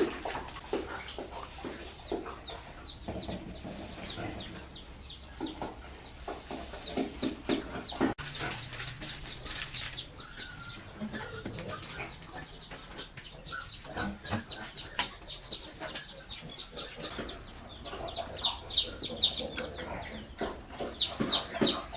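Chickens clucking and chirping, with a run of quick high cheeps near the end.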